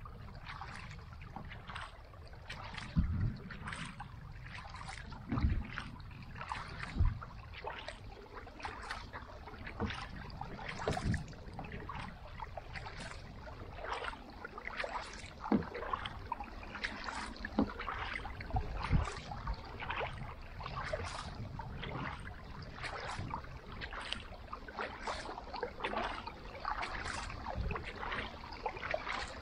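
Kayak paddle strokes in water: a carbon paddle's blades dipping and splashing one stroke after another, with water dripping off them, and a few low thumps among the strokes.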